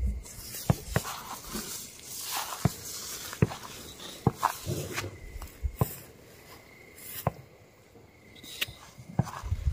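Footsteps through dry grass and scrub, with rustling and irregular sharp crunches and snaps.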